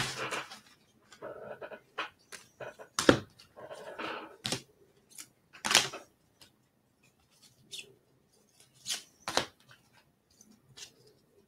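Intermittent rustling and sharp clicks of trading-card packs being handled: a plastic cello-pack wrapper crinkling and cards knocking, with short quiet gaps between.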